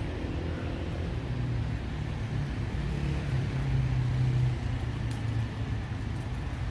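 Road traffic rumble from a nearby city street, with one vehicle's engine hum growing louder to a peak about four seconds in and then easing off.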